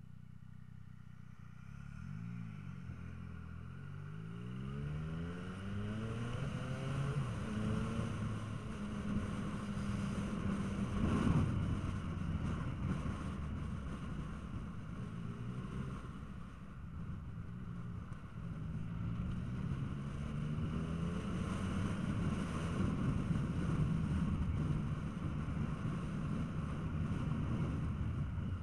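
Motorcycle engine idling, then pulling away and accelerating through several gears, its pitch rising and dropping back at each change, with wind noise building as speed picks up. A brief knock about eleven seconds in.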